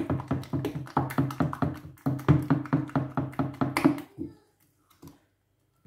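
A wooden turning stick stirring thick plantain moi moi batter in a stainless steel pot, knocking and scraping against the pot about five times a second. The stirring stops about four seconds in, followed by a few faint knocks.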